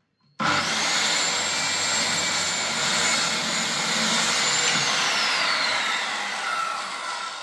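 Circular saw starting abruptly and cutting through a block of wood, its motor holding a steady high whine; about five seconds in the trigger is released and the blade spins down with a falling whine.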